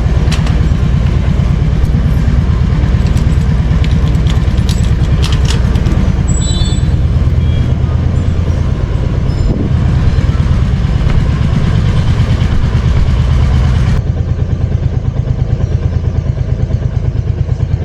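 Royal Enfield Hunter 350's 349 cc single-cylinder engine running steadily under way, its exhaust beating in a fast, even pulse.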